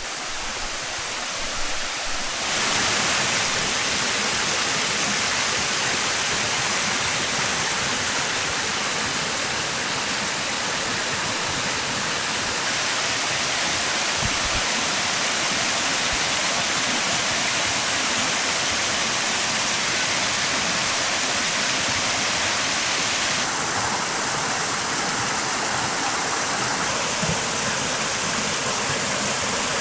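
Waterfall water rushing steadily, a dense even roar that grows louder about two and a half seconds in and then holds.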